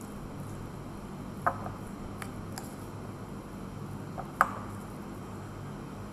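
A spoon stirring shredded cabbage and flour in a glass mixing bowl, clinking sharply against the glass about a second and a half in and again, louder, about four and a half seconds in, with a few lighter ticks between. A steady low hum runs underneath.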